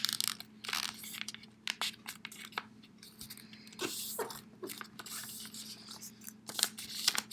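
A sheet of printer paper being folded and creased by hand: irregular rustles, scrapes and soft crinkles as the flaps are folded down into wings, over a faint steady hum.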